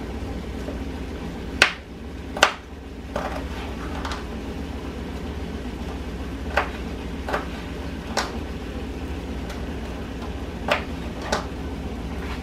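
Several light knocks at irregular intervals as broccoli florets are dropped into a pan of diced chicken, over a steady low background hum.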